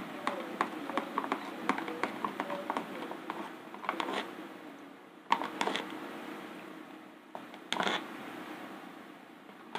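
A stick stirring thick screen-printing ink in a thin plastic cup, ticking and scraping against the cup's sides in a quick run of light clicks. This is followed by a few separate louder knocks as the cup is handled and set down on a cardboard box.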